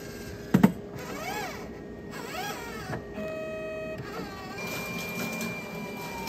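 Rotimatic Plus automatic roti maker at work: a sharp clunk about half a second in, then its motors whirring up and down in pitch twice. A short steady tone follows a little after the middle, and a thin high whine runs through the second half.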